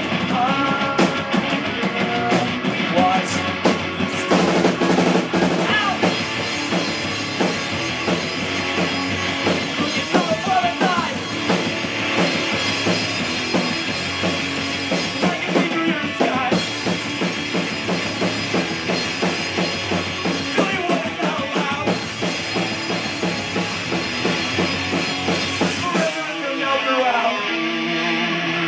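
Rock music with a full drum kit, bass drum and guitar playing steadily. Near the end the drums drop out and only held tones carry on.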